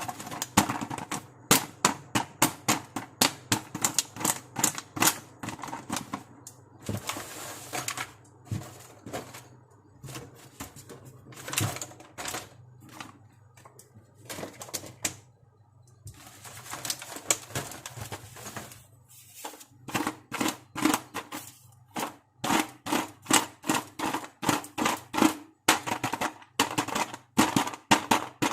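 Plastic pieces of a toy makeup kit clicking and tapping as they are handled and unpacked, in quick irregular runs of sharp clicks. Twice there is a stretch of rustling, first about a quarter of the way in and again past the middle.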